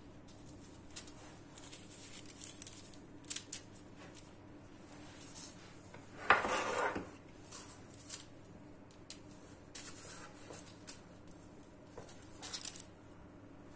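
Hands folding the edges of pide dough on a parchment-lined baking tray: soft rustling of baking paper and light taps. About six seconds in comes a louder scrape lasting under a second as the metal tray is turned on the stone counter.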